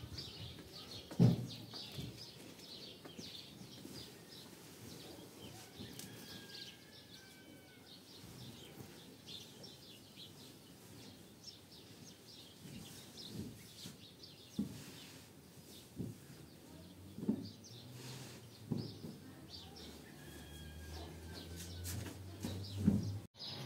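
Small birds chirping steadily, with a couple of short whistled glides, over occasional dull thumps from someone moving about and handling bedding; the loudest thump comes about a second in.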